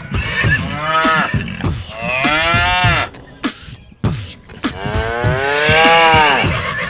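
Cow mooing three times, each moo rising and then falling in pitch, the last the longest.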